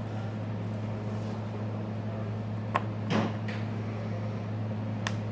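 Steady low hum with two sharp clicks, one about three seconds in and one near the end, and a brief rustle just after the first click.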